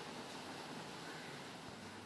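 Faint steady hiss of room tone, with no distinct sound standing out.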